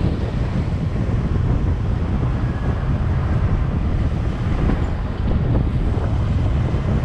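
Wind buffeting the microphone of a moving vehicle: a steady low rumble, with vehicle and road noise beneath it.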